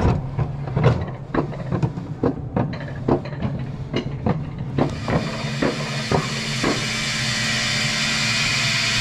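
Alpine coaster sled on its steel rails: a ratcheting click about two to three times a second as it is hauled up the lift section. About five seconds in the clicking stops and a steady rushing of the sled rolling along the rails takes over and grows.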